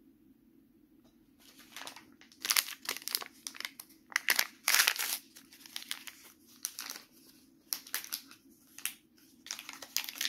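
Small plastic blind-bag wrapper of a Stikeez toy crinkling as it is handled and torn open by hand. It is a run of sharp crackles that starts after a short quiet moment and is loudest near the middle.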